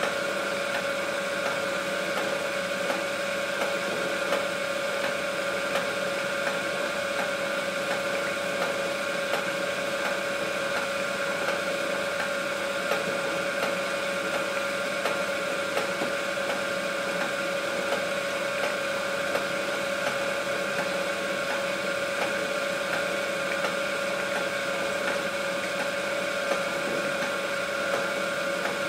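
A small motor running steadily, a constant whirring hum with a fine rapid rattle, unchanging throughout.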